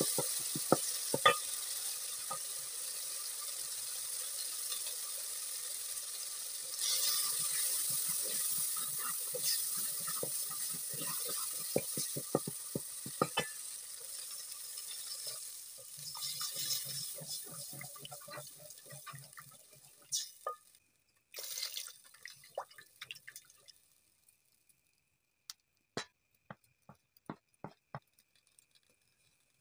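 Chopped tomatoes and onions sizzling in oil in a metal pot while a wooden spoon stirs and knocks against the pot. About halfway through, water is poured in and the sizzling dies away. Near the end there are only a few sharp clicks.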